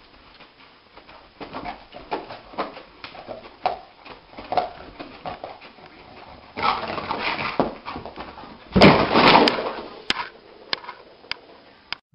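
A dog whimpering and giving short yelps among a string of small knocks and clicks, with a louder, rougher burst about nine seconds in.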